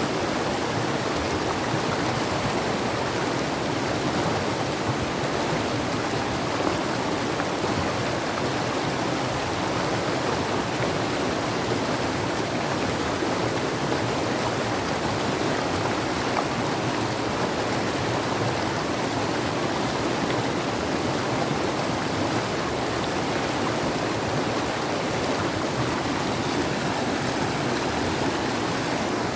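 Mountain river rushing, a steady, even sound of flowing water.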